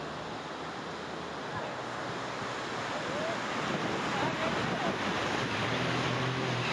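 Whitewater of a Colorado River rapid: a steady rushing of broken water that grows louder through the second half as the raft closes on it.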